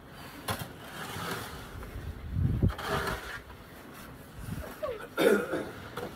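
Snow shovel working packed snow: several separate scraping strokes and thuds a second or two apart, the loudest about two and a half seconds in and just after five seconds.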